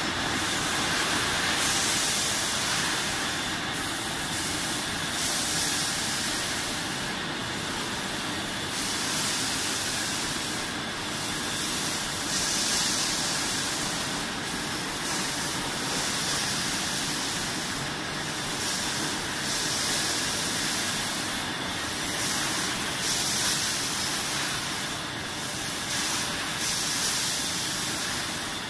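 Sidel SBO 10 stretch blow-moulding machine running: a loud, steady hiss of air and machinery. The high part of the hiss dips briefly at regular intervals, about every three and a half seconds.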